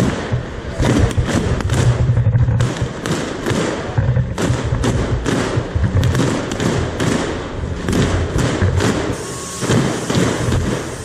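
Dense, irregular thumps and knocks, several a second: handling noise from a camera carried by someone walking in a marching picket line.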